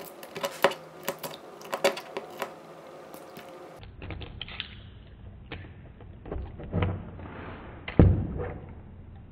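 A knife cutting down through a small soft-rubber Fashem figure, making a quick run of sharp clicks and taps. After that come duller, lower knocks, the loudest near the end.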